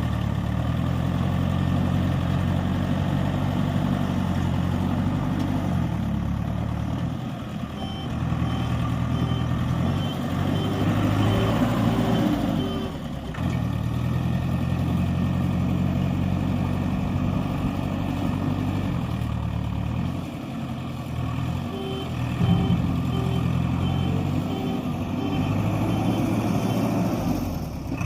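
Diesel engine of heavy construction machinery running steadily under load, surging briefly partway through. A reversing alarm beeps in two spells, at about two beeps a second.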